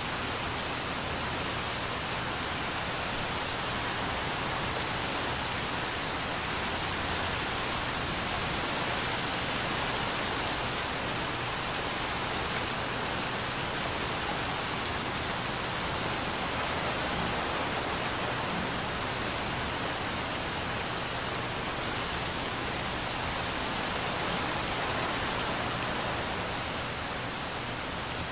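Steady rain falling on a swimming pool and its wet concrete deck: an even hiss, with a few sharp ticks of single drops.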